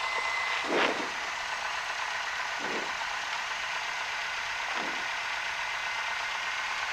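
Cessna 172's engine idling on the ground, heard from inside the cabin as a steady hum, with a low swell every couple of seconds.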